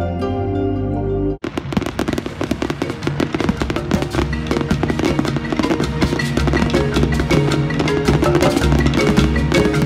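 Soft, sustained melodic background music that cuts off abruptly about a second and a half in, giving way to busy, fast percussive music with wood-block-like clicks.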